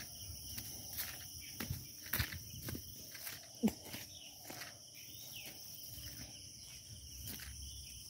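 Footsteps on a dry dirt path littered with fallen leaves, crunching irregularly about twice a second, with one louder crunch mid-way. Under them runs a steady high-pitched insect chorus.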